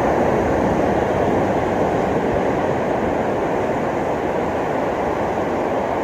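Ocean surf washing on a beach, a steady even rush with no single wave standing out.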